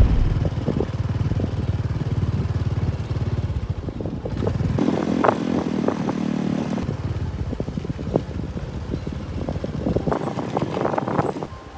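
An engine running with a low rumble and fine ticking, with a cluster of clatter and clicks near the end.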